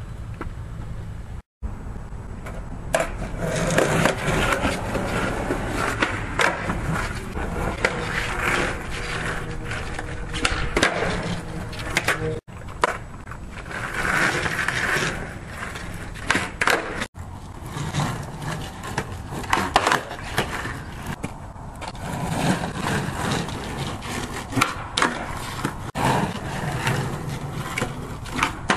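Skateboard wheels rolling on concrete, broken again and again by sharp clacks of the board popping and landing, with the sound cutting out briefly three times.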